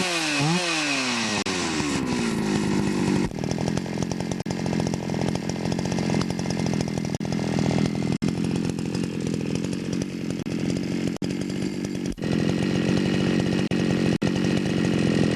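Jonsereds 451 EV two-stroke chainsaw, running on a freshly rebuilt Tillotson carburettor: it comes down off a couple of quick throttle blips in the first second, settles back over about two seconds, then idles steadily.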